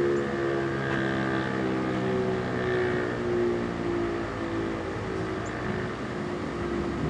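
ASC T-135 outdoor warning siren sounding a steady alert tone, its pitch holding level and its loudness wavering slightly.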